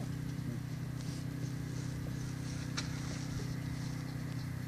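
A steady low engine-like hum made of several even tones, with one sharp click a little under three seconds in.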